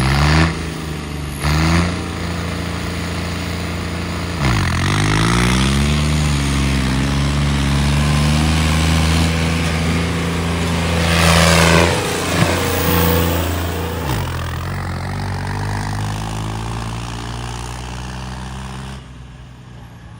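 Farm tractor diesel engines pulling hard in a drag race, revving up as they set off. Their pitch drops and climbs again at a gear change about four and a half seconds in, and again near fourteen seconds. The engine sound falls away sharply near the end.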